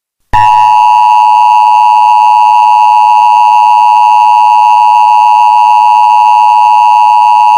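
Emergency Alert System attention tone: a loud, steady electronic alert tone that starts just after a brief silence and holds without a break, signalling that an emergency broadcast message follows.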